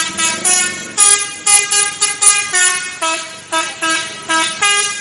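Telolet bus horn, a multi-tone musical air horn, playing a quick melody of short notes at changing pitches, about three to four notes a second, loud.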